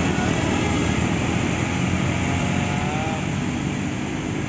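Bus engine and road noise as a heavy vehicle runs close past, a steady rumble that eases off slightly toward the end.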